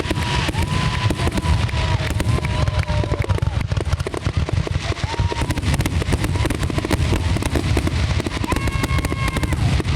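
Fireworks display going off: a dense, rapid crackle of many small bangs over a heavy low rumble, with a few steady high tones held for a second or two.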